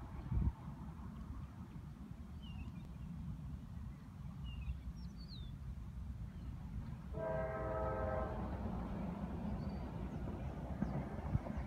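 A distant freight locomotive horn sounds once for about a second, about seven seconds in, over a steady low rumble. A short thump comes just after the start, and there are a few faint bird chirps.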